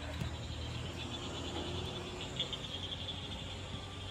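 A steady chorus of chirping frogs and insects, with a low engine hum underneath.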